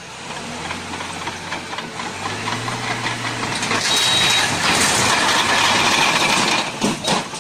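A heavy machine's engine running, with a rushing noise that builds and is loudest for a couple of seconds past the middle, then a few sharp knocks near the end.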